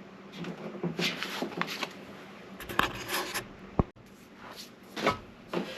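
Short, irregular scraping and rubbing sounds of hand work with tools and Bondo filler, with one sharp knock a little before four seconds in.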